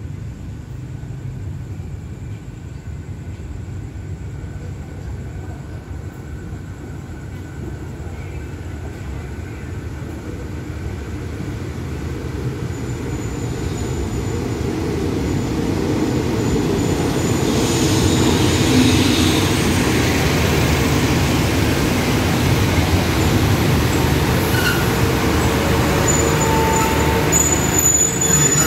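Diesel-hauled passenger express train approaching and running in alongside the platform to stop. It starts as a low distant rumble and grows steadily louder from about twelve seconds in as the locomotive and carriages draw level. Short high squeals come near the end as it slows.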